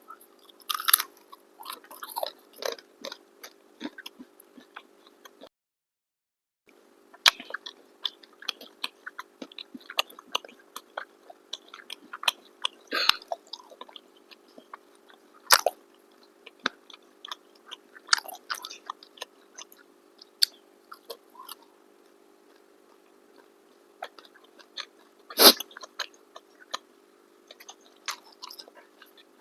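Close-up eating sounds: chewing and biting into chicken biryani and kebabs, with many short irregular mouth clicks and one sharper, louder click near the end. A steady low hum runs underneath and cuts out for about a second near the start.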